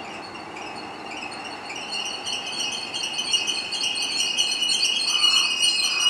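Electric commuter train pulling into a station. Its brakes and wheels give a high-pitched squeal of several tones that grows louder as it slows, over a low rolling rumble.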